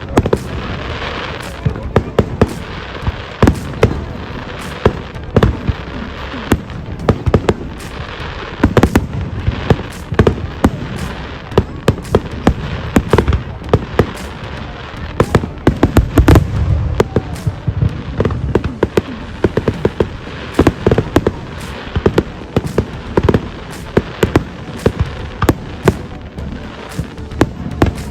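Fireworks display: a rapid, irregular string of loud bangs and crackles with a few deeper booms, with crowd voices and music underneath.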